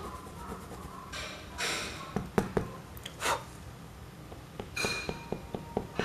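Pencil work on paper: a few short swishes of a hand or tool across the sheet and some sharp taps, then from about five seconds in a quick run of light taps, about five a second, as small marks are dotted in.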